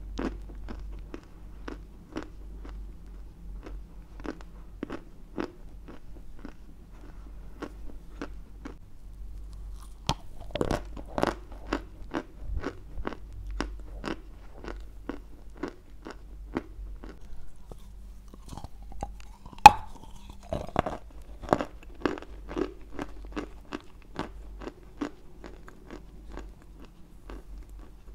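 Close-miked chewing of a lump of Turkestan white clay: a steady run of short wet crunches and mouth clicks, getting denser from about ten seconds in, with one loud sharp crack about two-thirds of the way through.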